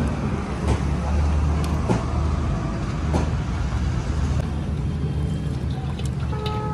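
Tractor engine running steadily, with a few sharp clicks or knocks. A steady pitched tone starts near the end.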